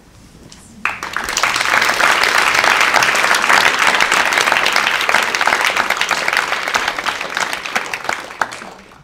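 Audience applauding: the clapping starts abruptly about a second in, holds, and tapers off near the end.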